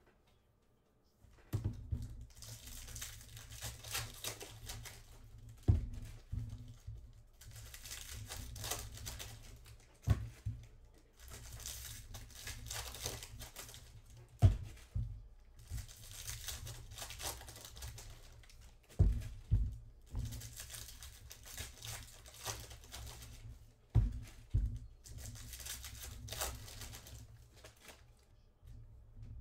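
Foil wrappers of Panini Recon basketball card packs being torn open and crinkled, one pack after another in about six stretches of crackling, with a few sharp knocks in between.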